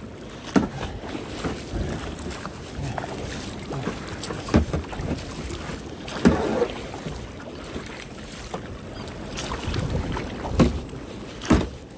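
Water washing against a kayak hull, with wind on the phone microphone and a few sharp knocks several seconds apart.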